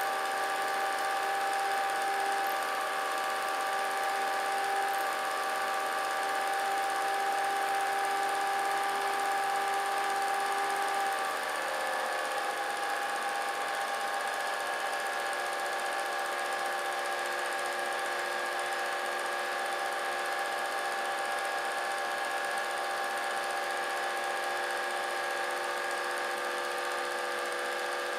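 Vintage film projector running: a steady mechanical whir with several held tones, which shift slightly lower in pitch about twelve seconds in.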